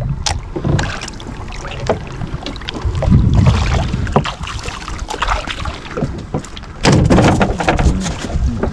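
Wind on the microphone and water against a small open fishing boat's hull, with scattered short knocks from the boat and gear; it gets louder about seven seconds in.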